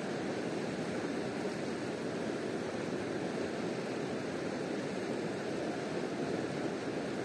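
River water rushing in a steady, unbroken wash.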